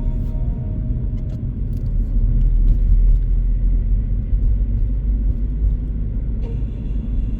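Steady low rumble of a Subaru BRZ driving along a road, engine and road noise. Music fades at the start and comes back near the end.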